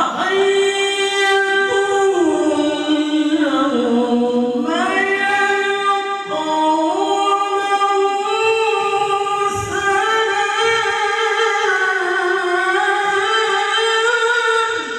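A qari's solo voice in melodic Qur'an recitation (tilawah), sung as one long phrase of held notes with ornamented runs. The pitch sinks low a couple of seconds in, climbs back just before the five-second mark, and then holds high until the phrase breaks off near the end.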